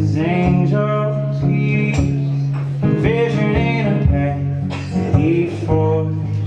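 A man singing an acoustic folk song, accompanying himself on a strummed acoustic guitar.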